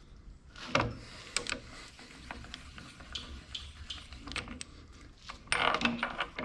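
Drill press slowly spinning an off-centre piece of plastic cutting board as it is cut, giving irregular clicks and knocks over a faint low hum. The loudest knocks come about a second in and near the end.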